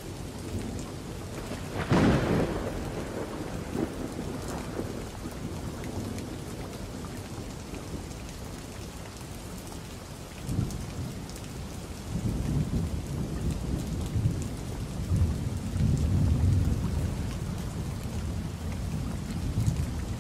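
Thunderstorm: a sharp thunderclap about two seconds in that trails off, then low rolling thunder rumbling through the second half. Steady rain hisses underneath throughout.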